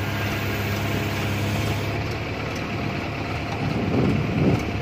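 Diesel engine of a JCB 3DX backhoe loader idling steadily close by.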